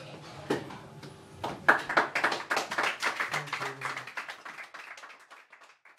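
A small group of people clapping, starting about a second and a half in and thinning out near the end. Under the start of the applause, the last low notes of the piece ring out and die away.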